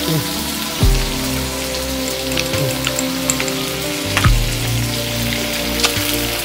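Shrimp and vegetables sizzling on a hot grill pan, with a few light clicks of chopsticks against the pan.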